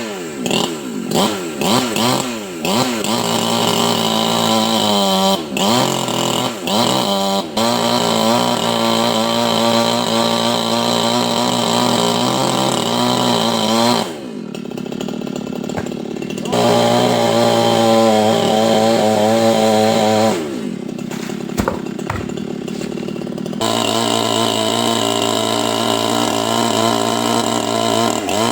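Two-stroke chainsaw cutting into a palmyra palm trunk: blipped up and down several times at first, then held at full revs, with two short drops to lower revs partway through before picking up again.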